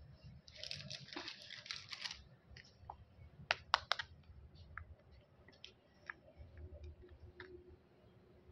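Candy packaging being handled: a crinkly plastic-wrapper rustle for about a second and a half, then a few sharp clicks and scattered light taps.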